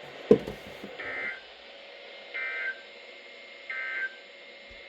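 NOAA Weather Radio SAME end-of-message signal: three short bursts of two-tone digital data, each about a third of a second long and roughly a second and a half apart, closing the warning broadcast. A loud click comes just before the first burst.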